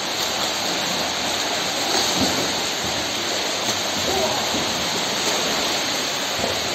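Steady splashing of several swimmers doing front crawl in a pool, an even wash of water noise, with faint voices in the background.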